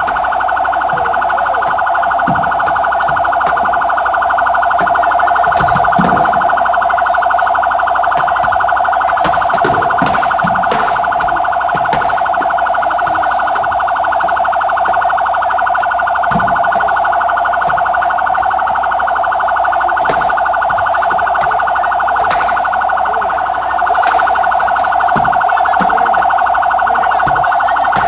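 Electronic emergency siren sounding without a break: a fast, even warble that holds the same pitch band and neither rises nor falls. Scattered low knocks and voices sound underneath.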